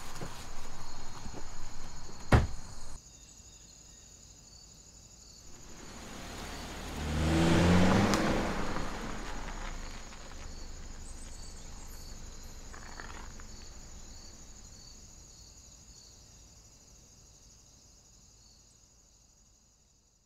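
A car engine swells as the car pulls past, then fades slowly away, over a steady chirping of crickets. A single sharp knock about two seconds in.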